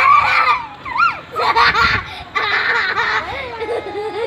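Children laughing and squealing in high-pitched bursts while playing in rainwater.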